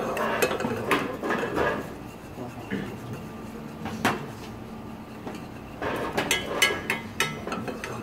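Wooden spatula stirring and knocking against a small stainless-steel saucepan as sugar is toasted over a gas flame for barbecue sauce. Scattered knocks and scrapes, with a quicker run of knocks near the end.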